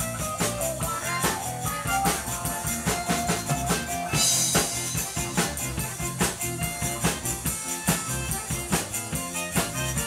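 Live band playing an instrumental passage, with button accordion, electric guitar and drum kit, over a steady drum beat. A cymbal crash comes about four seconds in.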